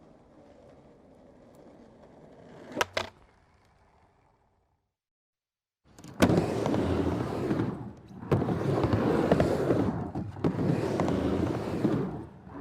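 Skateboard rolling, at first faintly, with two sharp clacks about three seconds in. After a short silence a much louder roll starts with a clack about six seconds in and runs on, easing off briefly a few times.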